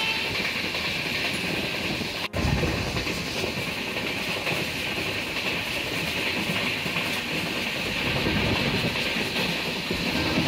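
Moving express passenger train running on the rails: a steady rumble with wheel and rail noise. There is a sudden brief break in the sound about two seconds in.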